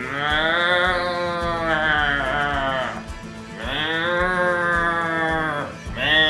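A farm animal giving three long, drawn-out calls, each rising and then falling in pitch, the last starting about six seconds in, over background guitar music.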